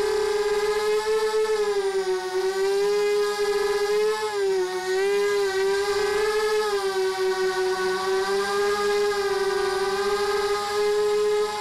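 Racing quadcopter's four ZMR1804 2400Kv brushless motors spinning 5x3 carbon props, a steady whine heard from the onboard camera. The pitch rises and falls several times as the throttle changes.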